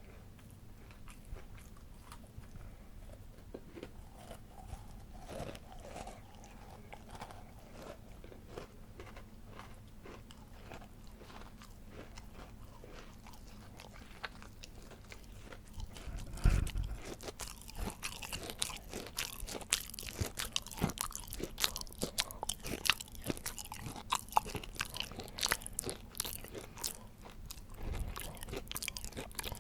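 Close-miked person eating cake: soft mouth and chewing sounds, then about halfway through a bite lands with a low thud and is followed by dense, crisp crunching and chewing.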